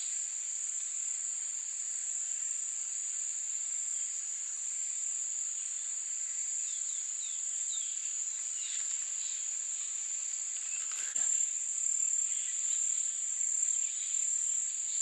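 Forest insects keeping up a steady, high-pitched drone, with a few faint short chirps past the middle and a soft knock about eleven seconds in.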